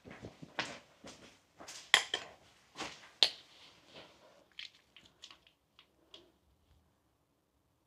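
Irregular clattering clicks and knocks of hard objects being handled, loudest about two and three seconds in, thinning to faint light clicks and stopping near seven seconds.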